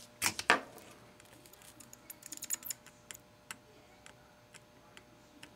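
Soldering iron tip working at the fine pins of a surface-mount SRAM chip, reflowing a solder bridge: faint scattered clicks and ticks, two sharper ones near the start and a quick run of small ticks around the middle.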